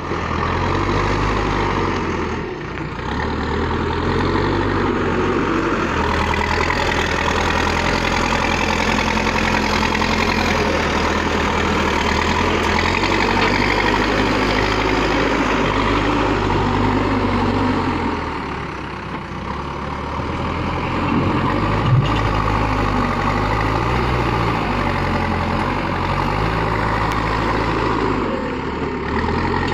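Backhoe loader's diesel engine running as the machine works, its pitch stepping up and down with the load, dropping briefly about 18 seconds in. A single sharp knock sounds about 22 seconds in.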